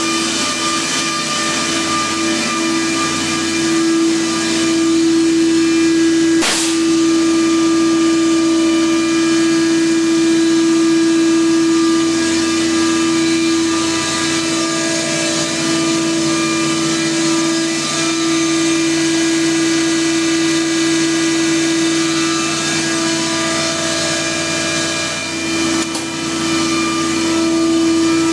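Engine room with a large main engine and its machinery running, a loud, even drone with a strong steady hum, and a single sharp knock about six seconds in.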